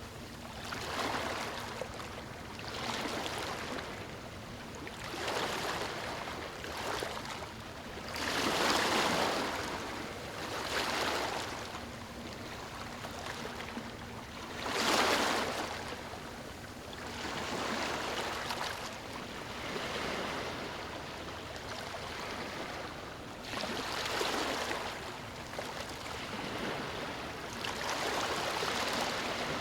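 Ocean waves breaking and washing up a sandy shore, the surf swelling and fading every few seconds, with the loudest break a little past halfway.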